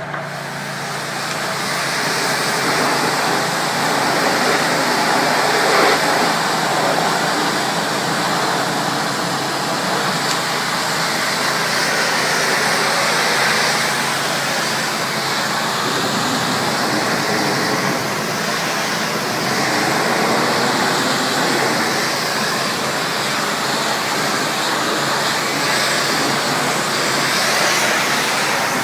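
Pressure washer spraying water onto a surface: a steady, loud rushing hiss that varies a little as the spray moves.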